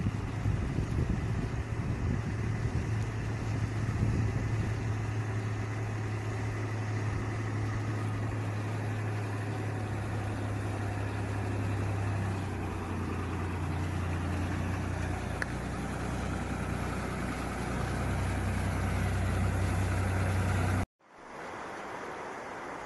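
A tractor engine running steadily as it drives through muddy floodwater, over the rush of the flowing water. Near the end the sound cuts off abruptly, leaving a quieter steady rush of water.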